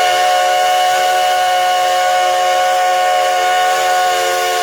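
Steam whistle of Nickel Plate Road 587, a 2-8-2 Mikado steam locomotive, blowing one long steady blast. The whistle sounds a chord of several notes over the hiss of escaping steam.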